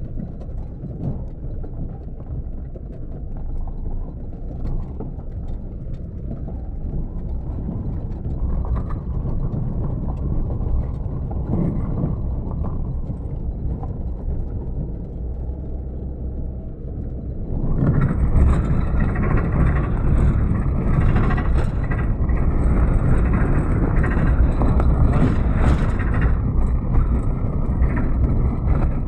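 Car driving over a rough gravel and sand desert track: a steady low rumble of engine and tyres that grows louder and noisier about two-thirds of the way through.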